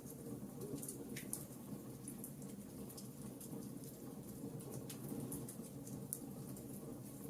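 Wood fire crackling in a fireplace: irregular sharp pops and snaps over a low, steady rush of flame.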